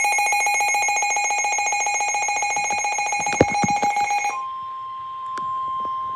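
A weather alert radio's alarm pulses rapidly on several high pitches and cuts off about four seconds in, just after a sharp click. A single steady tone near 1 kHz takes over: the NOAA Weather Radio warning alarm tone that comes before a severe thunderstorm warning.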